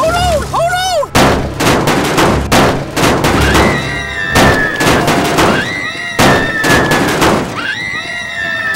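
Action-film sound effects: a rapid burst of sharp gunfire-like blasts starting about a second in, followed by sustained high pitched tones laid over the later part.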